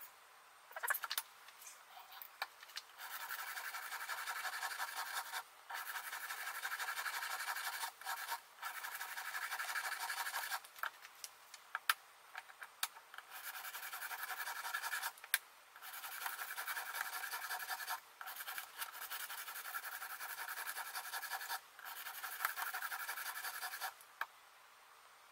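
Coarse 120-grit sharpening stone on an Edge Pro Apex guide arm scrubbing back and forth along the steel edge of a Bahco Companion knife. It makes a steady gritty rasp in runs of two to three seconds with short breaks, and a few sharp clicks between. This is heavy grinding to take the chipped edge back to a new 21-degree bevel.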